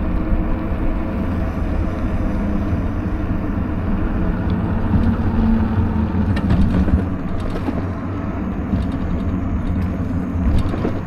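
Steady low rumble of wind on the microphone and tyres on the road while riding an e-bike, with a few faint clicks in the second half.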